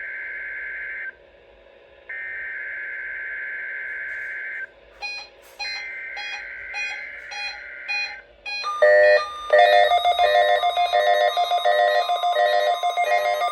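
Emergency Alert System SAME header: harsh two-tone digital data bursts about two and a half seconds long, separated by one-second pauses, sent over NOAA Weather Radio for a Required Weekly Test. About nine seconds in, loud pulsing electronic alert tones take over.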